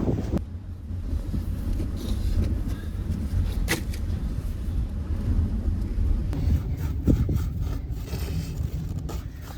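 Blizzard wind buffeting the microphone as a steady low rumble, with a sharp click a few seconds in and a few lighter knocks and scrapes near the end.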